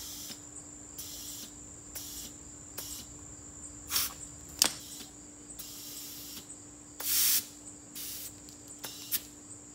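Air chuck on a compressor hose pressed onto a pneumatic cart tyre's valve stem, letting air in as short hissing bursts, about eight of them, the longest and loudest about seven seconds in, with a sharp click about halfway. The tyre is being inflated towards 20 PSI.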